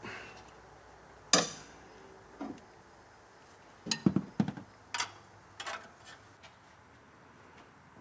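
Small metal clinks and taps of a spark plug socket and extension with the loosened spark plug being drawn out of the plug well: one sharp clink about a second in, then a quick cluster of lighter clinks around four to six seconds in.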